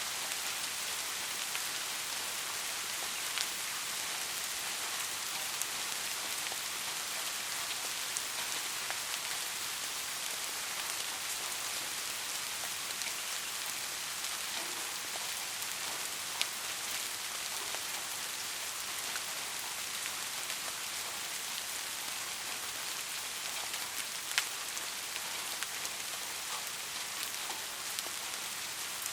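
Steady rain, an even hiss, with a few sharper single drop hits standing out now and then.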